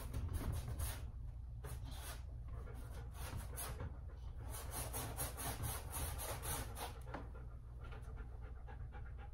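A dog panting in quick, rhythmic breaths.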